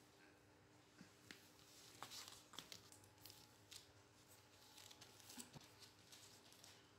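Near silence: room tone with a few faint rustles and small clicks scattered through it.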